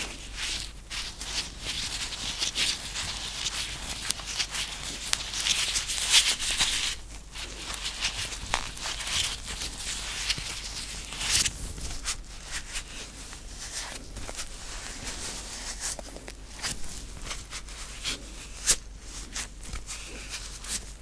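White rubber gloves rubbed, squeezed and flexed close to a microphone: dry rustling with quick sharp snaps. The rustling is dense for the first several seconds, then thins out into separate taps and snaps.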